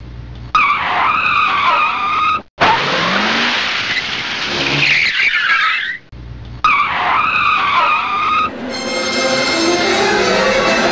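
Tyre-screech sound effect, then a rushing burst of noise, then the same tyre screech again. Rock music with electric guitar comes in about two-thirds of the way through.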